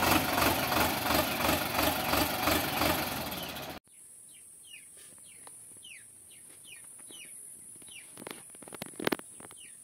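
Sonalika DI-750 III tractor's diesel engine running at idle, cut off abruptly about four seconds in. After the cut, birds chirp in short falling calls over a steady high insect whine, with two soft knocks near the end.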